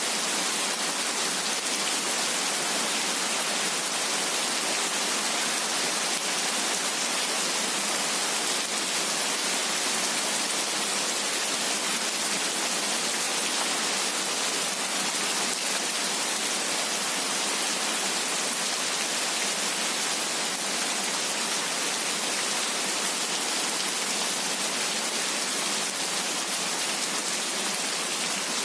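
Heavy rain falling steadily, a dense, even hiss of raindrops with no thunder.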